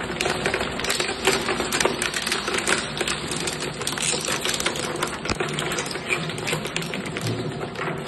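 Zuick Z2S-400 twin-shaft shredder, a 15 horsepower machine, chewing a plastic car bumper: rapid, irregular cracking and snapping of the plastic between the cutters over a steady motor hum.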